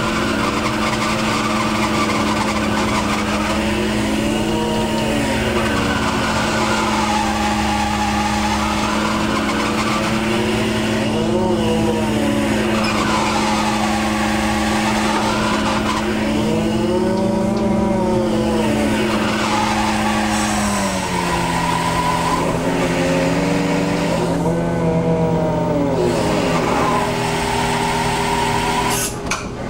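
Fishing boat's engine and hydraulic deck machinery running with a steady hum, and a whine that rises and falls in pitch every few seconds as the gear is hauled aboard. The hum drops to a lower pitch about two-thirds of the way through, over a constant wash of wind and sea.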